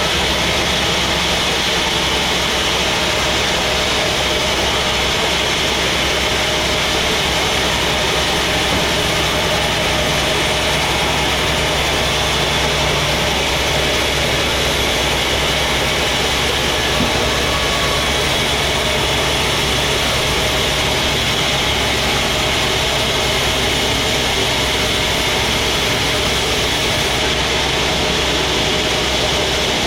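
Sawmill machinery running steadily: a continuous, even machine drone with a low hum that holds without a break.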